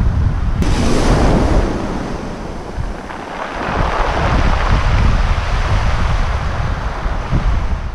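Wind buffeting the microphone over small waves washing up a pebble beach. The wash swells about half a second in and again around four seconds.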